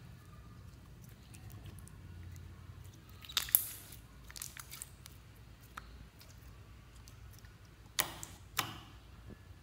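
Clear yellow jelly slime stretched and squished between the hands, giving soft sticky clicks and pops. There is a sharper cluster of pops about three and a half seconds in and two louder clicks near the end, about half a second apart.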